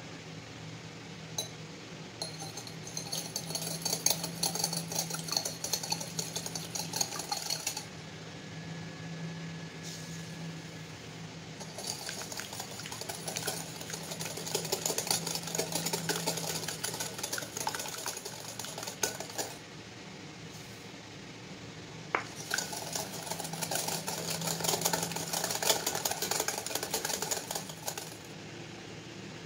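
Wire whisk beating egg mixture in a glass bowl, its wires rattling rapidly against the glass in three bouts of fast strokes with short pauses between.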